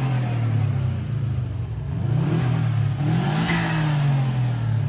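Big-turbo Subaru STI's turbocharged flat-four being free-revved in neutral. Revs fall at the start, rise again from about two seconds in and drop back after a peak near the end. The turbo flutters ('stututu') as the throttle snaps shut, a compressor surge from the large turbo.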